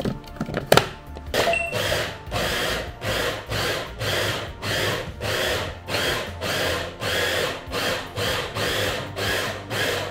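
Electric meat grinder switched on about a second in, chopping the cut pork with a whir that swells and fades about twice a second. Two sharp knocks come just before it starts.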